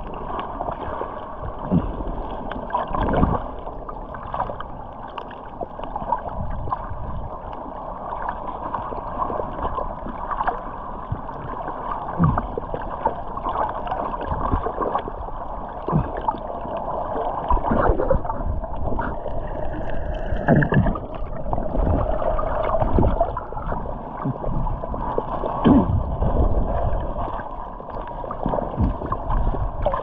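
Muffled underwater water noise through a submerged camera's waterproof housing, with bubbling and scattered dull knocks.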